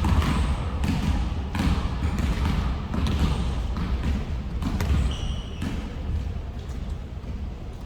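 Basketballs bouncing on a gym floor, many irregular bounces from several players dribbling. There is a brief high squeak about five seconds in.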